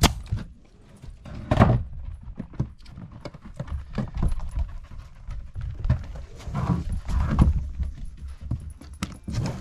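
Nail gun driving nails into old wooden porch floorboards: a sharp shot right at the start, another about a second and a half in, and one more near the end, with smaller knocks and scuffs on the boards between.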